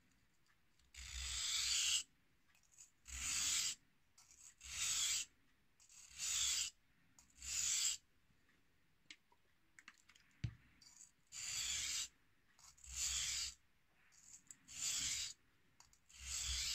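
Carving knife blade scraping back and forth on the coarse side of a wet 1000/3000 combination whetstone, sharpening the second side of the edge. There are about nine steady, evenly spaced strokes, each about a second long, with a pause of a few seconds midway that holds a single light click.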